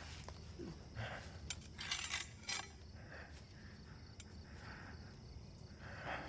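Quiet film foley of a kitchen knife and a body on asphalt: scattered light scrapes and metallic clinks, busiest about two seconds in, over a low steady rumble.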